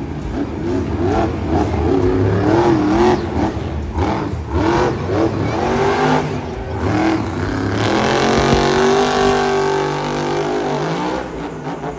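Megalodon monster truck's supercharged V8 engine revving up and down in quick pulses, then held at high revs for about three seconds as the truck spins, easing off near the end.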